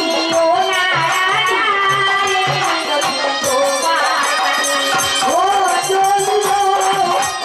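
Live Bengali folk-theatre music: a melodic line of held, wavering notes over regular drum beats and rattling, jingling percussion.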